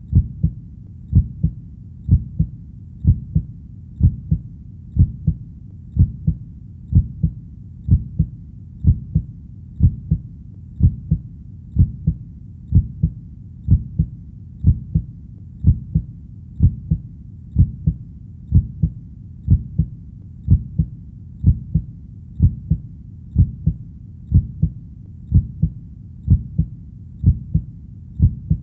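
Heartbeat: a steady, even double thump (lub-dub) about once a second, deep and low.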